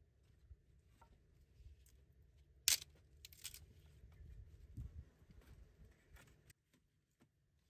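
Dry sticks cracking and knocking as firewood is broken by hand and laid on a small smoking fire. One sharp snap about two and a half seconds in is the loudest, with a quick run of smaller cracks just after it.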